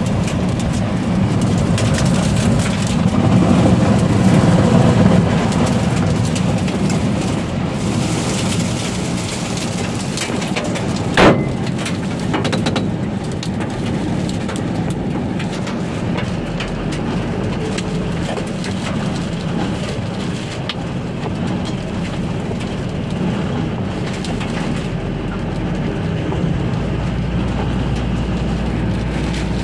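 Tornado wind and rain battering a vehicle, heard from inside it: a dense roar of wind noise, loudest a few seconds in and easing later, with a single sharp bang about eleven seconds in.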